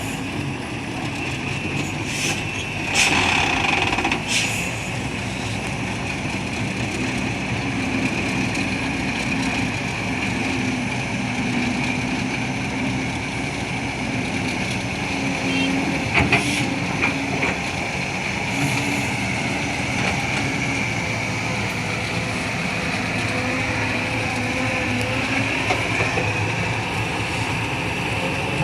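Excavator engine running steadily, with a constant high whine over it and a few knocks and clanks about two to four seconds in and again around sixteen seconds.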